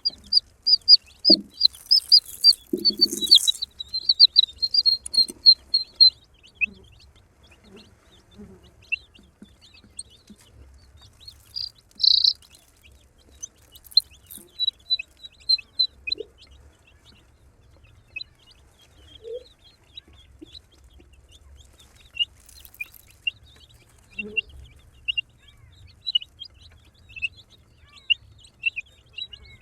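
Baby chicks cheeping: a fast run of high peeps at first, then scattered peeps, with a few short low clucks and a brief rustle about two seconds in.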